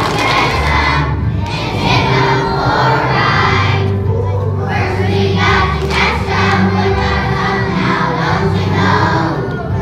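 A large children's choir singing in unison over an instrumental accompaniment with a bass line that moves from note to note.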